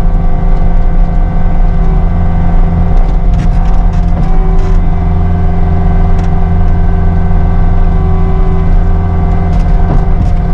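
Cat 259D3 compact track loader's diesel engine running steadily under load, with a few brief clicks.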